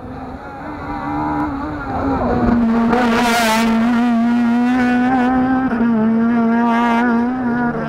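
Rally car coming past at speed, its engine held at high revs in one loud steady note. The note drops slightly in pitch about two seconds in as the car goes by, stays loud while it pulls away, and fades near the end.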